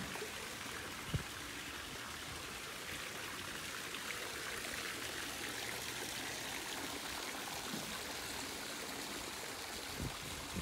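Steady rushing of running water, like a stream, with a single short click about a second in.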